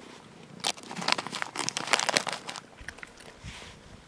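A kitten and a puppy crunching food close up: a dense run of sharp crunches from about half a second in to about two and a half seconds in, then quieter.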